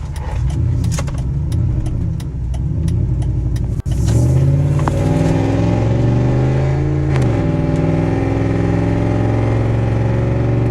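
Straight-piped exhaust of a Dodge Dakota pickup droning loudly while driving. About four seconds in, the engine note climbs steadily as the truck accelerates, then drops sharply as the transmission shifts up, and holds steady after that. The exhaust is loud because it has been replaced with a straight pipe.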